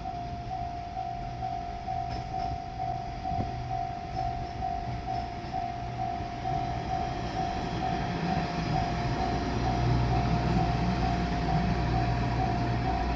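Level crossing warning bell ringing in a steady repeating pattern. A diesel railcar's engine rumble grows louder from about eight seconds in as the train approaches.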